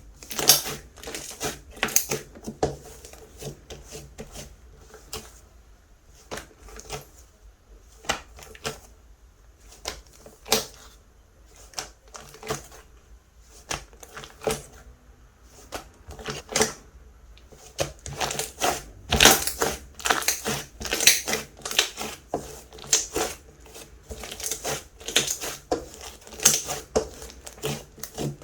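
Hands pressing and squishing a clay-mixed slime, which gives sharp crackling clicks and pops. The clicks come in scattered ones and twos at first, then come thick and fast in the second half.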